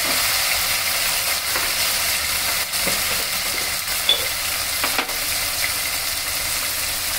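Tomatoes frying in oil with onions, green chillies and whole spices in a pan, a steady sizzle, with one brief clink about four seconds in.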